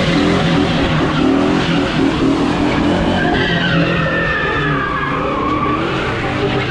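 Cammed New Edge Mustang GT's 4.6 L V8, with stage 2 Comp Cams and a Magnaflow Outlaw exhaust, running hard under load while its rear tyres spin and squeal in a smoky burnout. About halfway through the squeal slides lower in pitch as the car pulls away.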